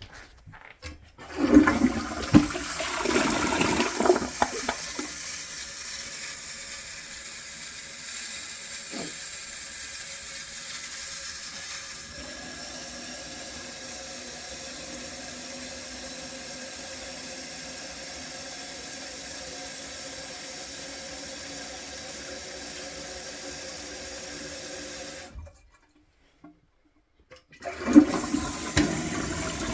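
Toilet flushed: water rushes and gurgles down the bowl, then the newly installed fill valve hisses steadily as the tank refills. The sound cuts off abruptly near the end, and a second flush starts just before it ends.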